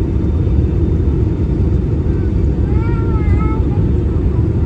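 Steady loud rumble of an Airbus A320-200's cabin in flight. About three seconds in comes a brief, high, wavering vocal sound, like a small child's whine.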